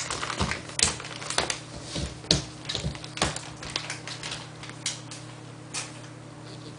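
Irregular light taps and clicks, roughly one every half second to a second, over a steady low hum.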